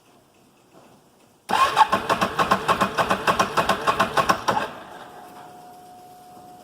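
Can-Am Outlander 650 ATV's Rotax V-twin cranked on its electric starter for about three seconds, an even fast chugging of compression strokes, which stops without the engine catching and then fades. This is the intermittent crank-no-start that the owner traced to a faulty crank angle sensor.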